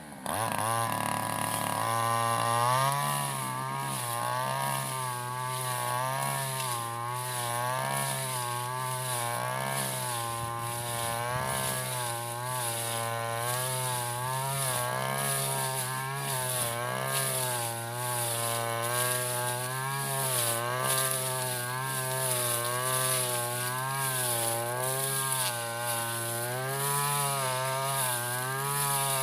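Stihl FR 3001 brush cutter's engine running hard while cutting tall grass, its pitch rising and falling over and over as the engine takes and sheds load.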